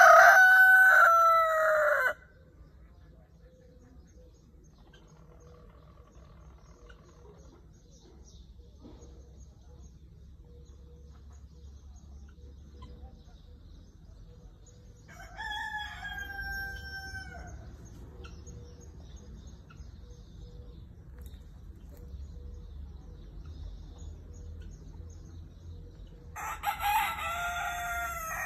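Red rooster crowing three times: a loud crow right at the start lasting about two seconds, a fainter crow about halfway through, and another beginning near the end.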